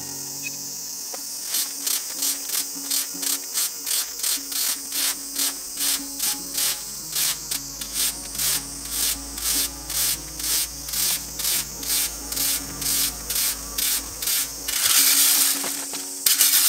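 Rake tines scraping twigs and grit across an asphalt road in quick, regular strokes, about three a second, after a short pause at the start. About fifteen seconds in there is a louder, rougher stretch of scraping.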